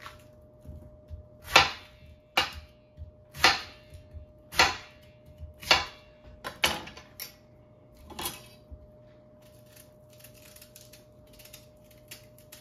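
Yellow yam being peeled with a blade: a run of sharp scraping strokes, roughly one a second, with fainter, lighter scrapes for the last few seconds. A faint steady hum runs underneath.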